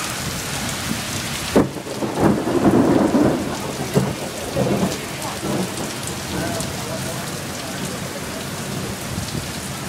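Heavy rain falling steadily in a severe thunderstorm, with a sharp thunderclap about a second and a half in, followed by a few seconds of rumbling thunder that dies back to the rain.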